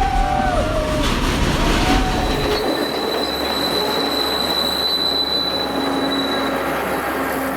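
Train running on rails, its wheels squealing in gliding high tones in the first second over a heavy rumble. The rumble drops away a little under three seconds in, leaving a steady high whine and rail noise.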